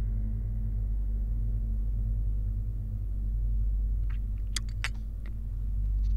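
A steady low rumbling drone, with a few light clinks about four to five seconds in from a Turkish tea glass being set on its metal saucer.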